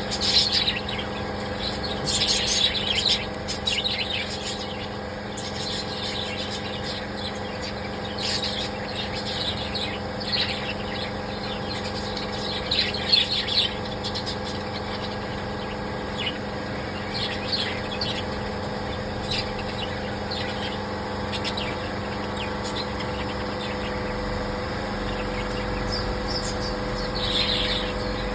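Small birds chirping in short, scattered bursts of high calls, over a steady low mechanical hum.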